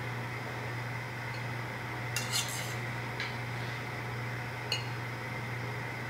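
Metal tongs clinking a few times against a stainless steel bowl as pasta is lifted out and twirled onto a plate, over a steady low hum.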